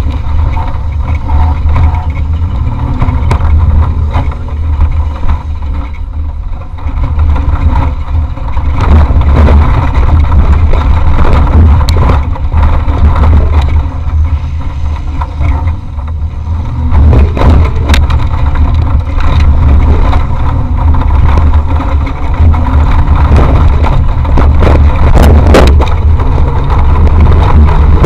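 Onboard sound of an off-road race vehicle driven hard over rough ground: the engine running under load with a constant heavy low rumble. Sharp knocks and rattles come about two-thirds of the way in and again near the end.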